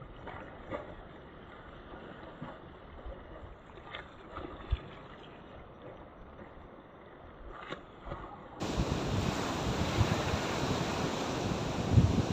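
A quiet, muffled stretch with a few faint clicks. About two thirds of the way in, sea surf and wind buffeting the microphone cut in abruptly and carry on loudly.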